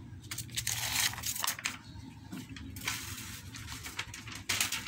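Sheets of handwritten lined paper rustling and crinkling as a page is turned over, in a few short crackly spells.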